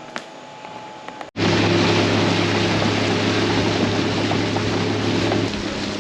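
A motorboat engine running steadily, with rushing water and wind noise, coming in suddenly about a second in after a quieter stretch. Near the end the engine note drops lower.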